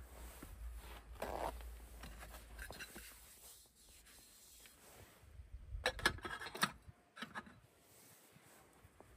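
Small handling sounds: rubbing and scraping, with a short cluster of clicks and knocks about six seconds in.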